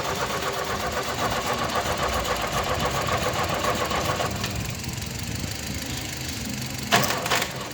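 Ford Capri Mk2 engine running, a car that had been lying idle for years being started up. The sound eases a little about four seconds in, and there is a sharp knock or clatter about seven seconds in.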